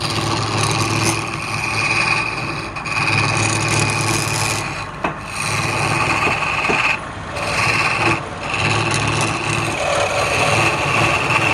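Wood lathe running with a steady motor hum while a turning tool cuts the spinning wood, a rough scraping that breaks off briefly a few times.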